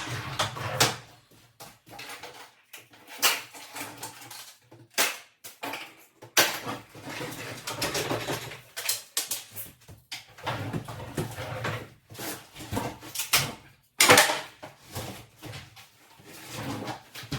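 Irregular knocks and clattering of wooden kitchen cabinets being unscrewed, knocked loose and pulled from the wall during demolition.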